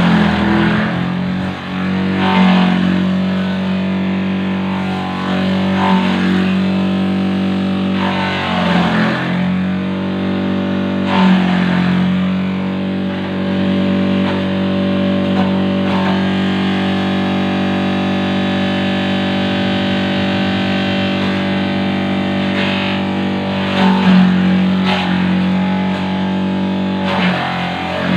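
Electric motor from a second-hand water pump driving a homemade banana-stem chopper, running with a steady hum. Every few seconds, as a piece of banana stem is fed in, the blades shred it with a rasping burst and the motor's pitch briefly sags under the load. There is a longer stretch of plain running in the middle.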